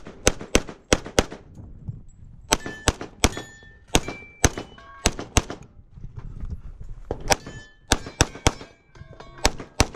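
Rapid pistol shots fired in three quick strings of about six or seven, the loudest right at the start. After several of the shots in the later strings comes the brief ring of struck steel targets.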